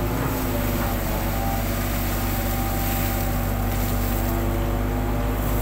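Hitachi long-reach excavator's diesel engine running steadily, working the hydraulics as the long arm lifts the bucket up out of the river water.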